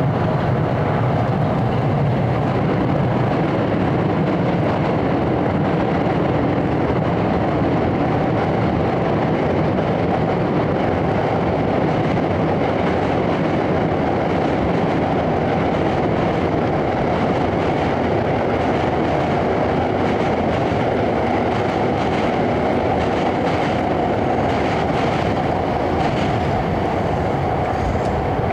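A loud, steady droning rumble of engine noise with no rise or fall.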